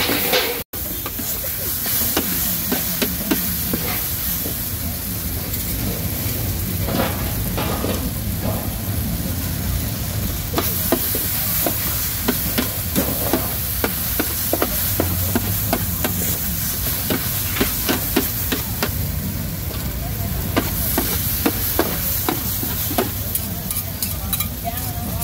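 Metal spatula scraping and clacking against a large shallow metal wok as short noodles with beef, bean sprouts and greens are stir-fried, over a steady sizzle. The clacks come many times throughout, with no pattern.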